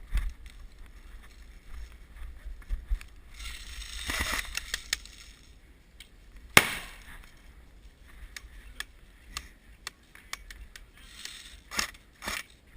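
Scattered sharp pops and clicks typical of an airsoft skirmish, with a rustling stretch around four seconds in. The loudest is a single sharp crack about six and a half seconds in.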